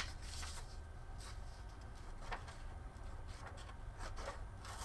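3D-printed plastic scissors cutting a sheet of paper: faint paper rustle with a few light snips. A sharp click comes right at the start.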